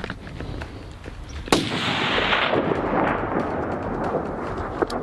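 A single hunting rifle shot about one and a half seconds in, its report rolling and echoing off the canyon walls for several seconds afterwards. A short sharp click near the end.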